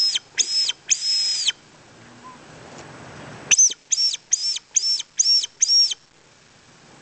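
Squirrel caller sounding a series of high, squeaky chirps, each sliding down in pitch: three in the first second and a half, the last one drawn out, then after a pause a run of six at about two and a half a second, meant to lure a squirrel out of its den hole.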